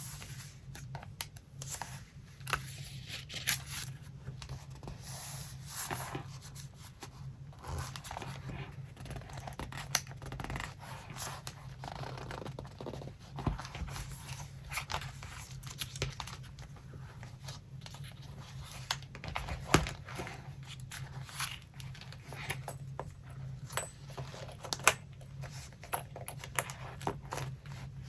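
Paper collage materials being handled: paper rustling and sliding, with scattered light taps and clicks, over a steady low hum.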